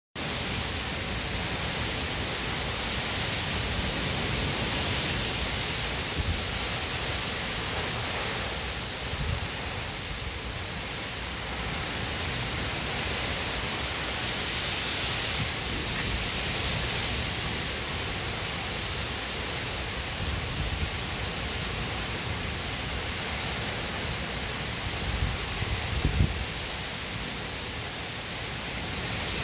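Heavy rain pouring steadily onto pavement and parked cars, swelling and easing a few times, with a brief low rumble near the end.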